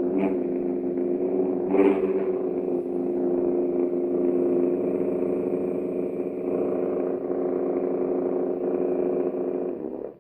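Custom lightsaber's synthesized hum, made of sine and square waves from an Arduino Pro Micro played through a class D amplifier. It runs as a steady, buzzy drone with two brief swells near the start and about two seconds in, which fits the gyroscope-driven pitch and volume change on motion. It dips and cuts off near the end.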